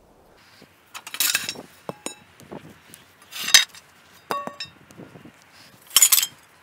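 Steel pipes clanking and scraping against each other as they are pulled from a scrap pile, with three louder clatters and several short clinks that ring on briefly.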